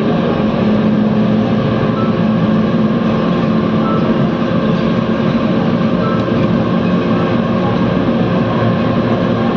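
Mumbai Monorail train running at steady speed, heard from inside the car: an even running noise with a constant motor hum.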